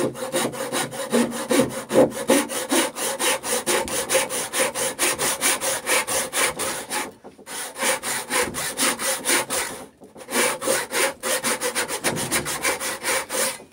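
Backsaw cutting a quarter-inch-deep shoulder into a birch post for a lap joint, in quick, even strokes. The sawing pauses briefly twice, about seven and ten seconds in.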